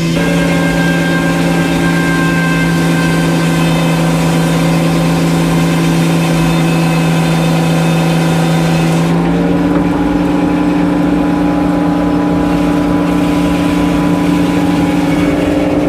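Engine powering a sawmill, running steadily under load. About nine seconds in, its pitch steps up and the high hiss drops away.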